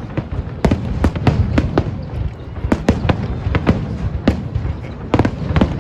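Aerial fireworks bursting: a rapid, irregular string of bangs, two or three a second with a brief lull about two seconds in, over a continuous low rumble.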